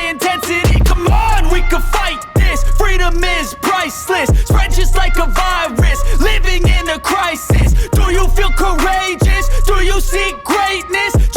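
Hip hop music with rapped vocals over a steady beat and deep bass.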